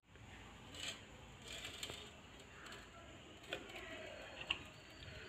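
Thick herbal oil being poured quietly from a steel pot into a jar, with a few faint ticks and clinks of the pot and its spoon.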